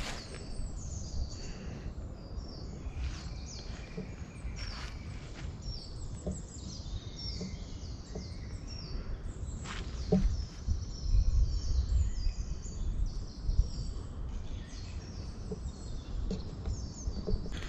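Several small birds singing and calling, many short high chirps and trills throughout, over a low rumble that swells about ten to thirteen seconds in.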